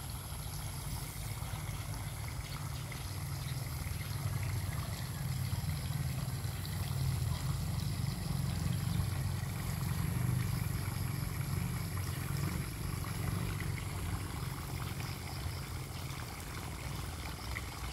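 Water trickling, under a steady low rumble.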